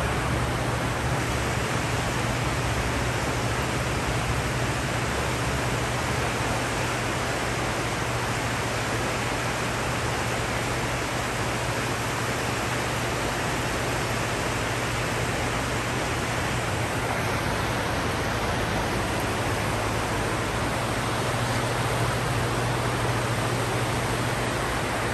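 Floodwater rushing and churning in a steady wash across the concrete floor of a parking garage, with a low steady hum underneath.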